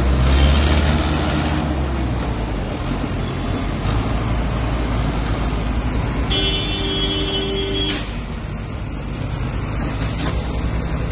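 Tractor engines working hard under load: a red Mahindra tractor and a green tractor straining against each other on a tow line in a tractor tug-of-war, a deep engine drone heaviest in the first two seconds. A vehicle horn sounds steadily for about a second and a half past the middle.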